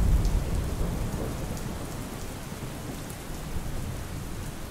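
Steady rain falling, with a low rumble of thunder dying away over the first couple of seconds.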